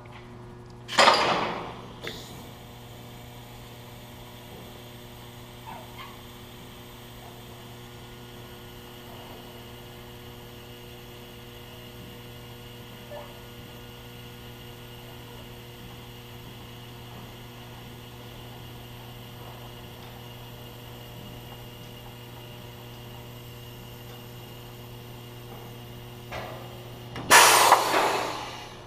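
Steady electrical mains hum, broken twice by a short, loud burst of hiss: once about a second in and again near the end.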